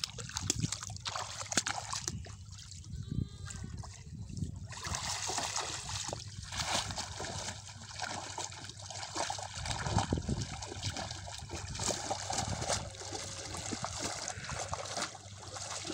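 Shallow pond water splashing and sloshing as a woven bamboo scoop basket on a pole is pushed and worked through it by a man wading. The splashing becomes busier and louder about five seconds in.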